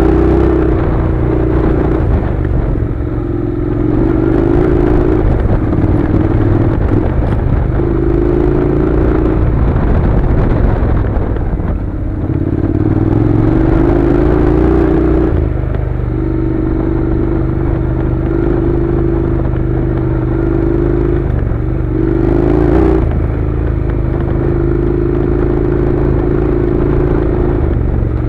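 Honda NC700's parallel-twin engine pulling the motorcycle along a gravel track, the engine note rising as the throttle opens and dropping off again every few seconds. Tyre noise from the loose gravel runs underneath.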